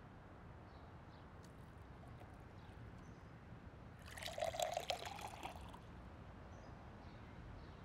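Coffee poured into a ceramic mug, a short splashing stream lasting under two seconds about four seconds in.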